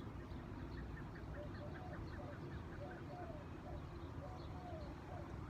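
Birds calling over a steady low rumble. A quick run of short high notes comes first, then lower calls repeat about twice a second.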